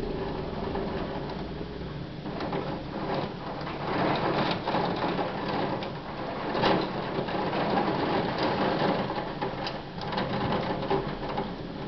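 Heavy thunderstorm rain pattering densely, with many fine ticks of drops striking a hard surface close by. It swells louder about four seconds in, peaking a little before the middle.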